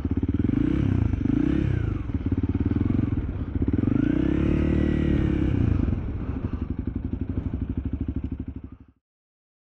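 Honda CRF300L single-cylinder engine running at low speed. The revs rise and fall twice as the bike rolls across a car park and pulls up, then settle to a lower, steadier note. The sound cuts off suddenly near the end.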